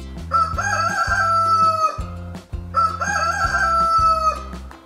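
Rooster crowing twice, each crow about a second and a half long, over a light backing track with a steady beat.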